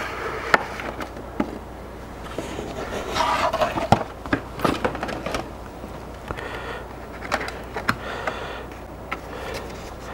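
Clear plastic clamshell packaging and its sleeve being handled, crinkling and rustling with sharp plastic clicks scattered throughout and a louder crinkly rustle about three seconds in.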